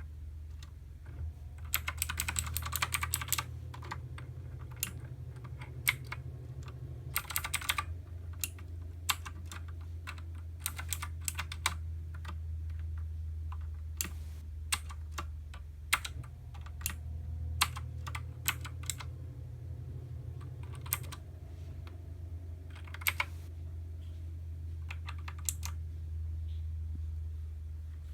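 Xenics Titan Mark 7 mechanical keyboard with clicky blue switches being typed on: scattered single keystrokes, with quick runs of typing about two seconds in, around seven seconds and near twenty-three seconds. A steady low hum runs beneath.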